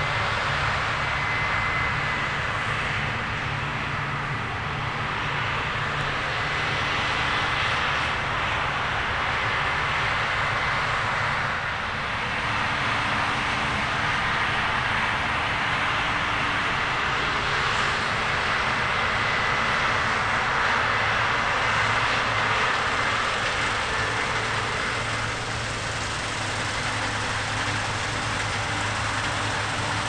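New Holland CR10.90 combine harvesters running at work in wheat: a steady engine drone under a dense rushing hiss from the threshing and straw-handling machinery, with a thin high whine held throughout.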